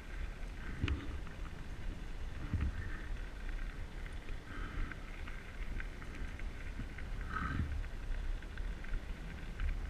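Steady low rumble of wind and tyres on a bicycle's action camera riding along a tarmac path, with a few knocks and rattles from the bike.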